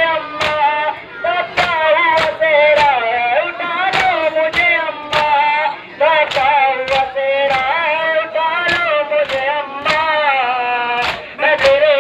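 Voices chanting a Shia noha lament in unison, with sharp open-handed chest-beating slaps (matam) at a steady beat of roughly one to two a second, pausing briefly now and then.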